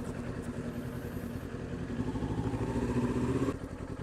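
Motorcycle engine running with a steady, fast firing pulse, building slightly in pitch and loudness, then easing back abruptly about three and a half seconds in as the throttle is rolled off.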